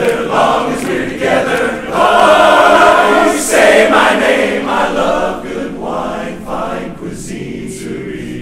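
Men's barbershop chorus singing a cappella in close four-part harmony, swelling loud about two seconds in and easing off softer toward the end.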